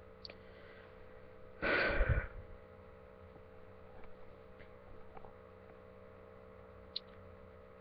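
A person's short, loud breath about two seconds in, over a steady electrical hum, with a faint click near the end.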